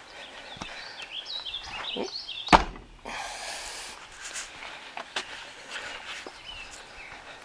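Footsteps on a dirt campsite as someone walks around a small camping trailer, with a single hard thump about two and a half seconds in.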